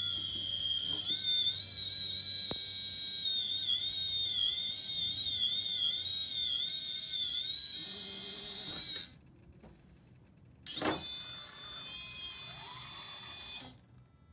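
High-pitched electric whine from the RC crawler's motor and Mamba Micro X speed controller as it creeps up a steep ramp under low throttle, the pitch wavering slightly. The whine cuts off about nine seconds in, and a short rising sweep follows a couple of seconds later.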